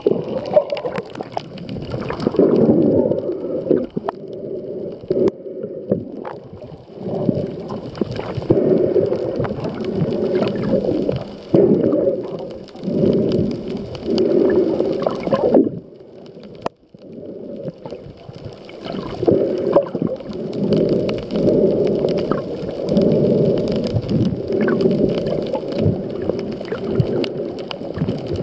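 Muffled underwater sound of water swirling around a submerged camera while a snorkeler swims, surging and fading every second or two, with a short lull about two-thirds in.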